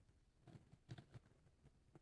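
Near silence, with a few faint, brief ticks.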